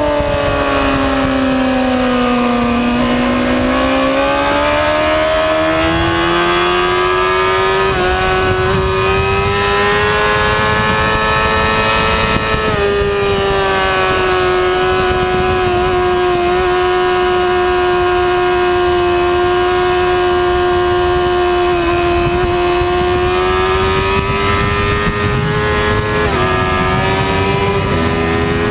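Sport motorcycle engine at high revs on a race track: its pitch falls for the first few seconds, climbs for several more, then holds high for a long stretch, with a few small steps near the end. A steady rush of wind runs underneath.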